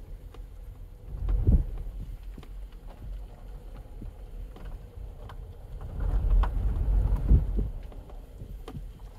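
Low rumble of a slowly moving car with wind buffeting the microphone, swelling about a second and a half in and again from about six to seven and a half seconds, with scattered light clicks and ticks throughout.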